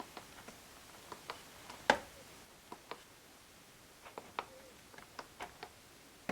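Small plastic keys and buttons on a Rii mini Bluetooth keyboard clicking under the fingers: a dozen or so faint, irregular clicks, one louder click about two seconds in.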